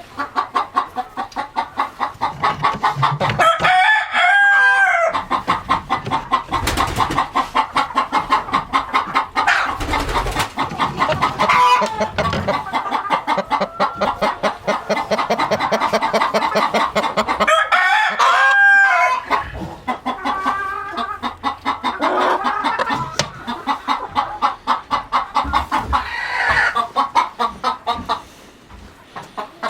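A flock of chickens clucking steadily and rapidly. A rooster crows twice, about four seconds in and again a little past halfway.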